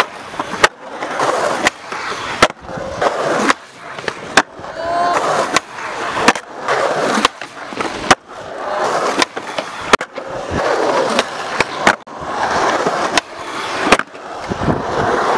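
Skateboards rolling on concrete, the wheels' rumble swelling and fading through a bowl. Sharp wooden clacks from boards popping and landing come about once a second.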